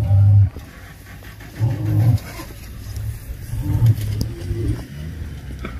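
Male lion roaring: three deep, short calls about two seconds apart.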